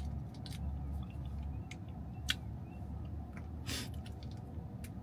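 A small plastic sauce packet being bitten at and torn open with the teeth: scattered small clicks and crinkles, with one louder crinkle near four seconds in, over a steady low hum.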